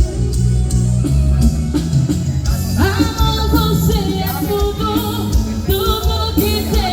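A band plays a pop song with bass, drums and guitar. A singer's voice comes in about three seconds in.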